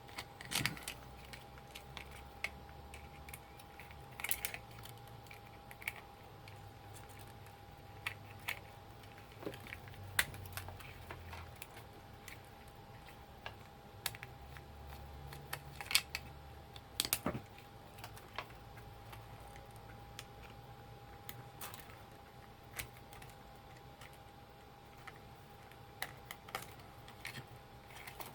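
Irregular small clicks and taps of plastic and metal parts being handled while an old label maker is taken apart, over a faint steady high tone.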